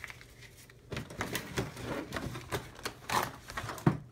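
Plastic packaging of a Pokémon card collection box crinkling and clicking as it is pulled open by hand, in irregular sharp clicks and rustles.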